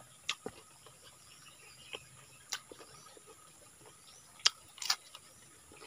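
Scattered soft clicks and smacks of a person eating by hand and chewing, about six in a few seconds, over a faint steady high insect drone and the odd faint bird chirp.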